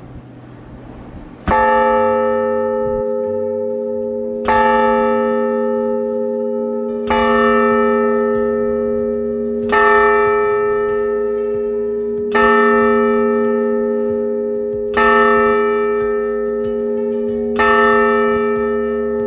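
1884 McShane church bell struck seven times at an even pace, about every two and a half seconds, by its automatic striker. Each stroke rings on and overlaps the next. A faint rushing noise comes before the first stroke.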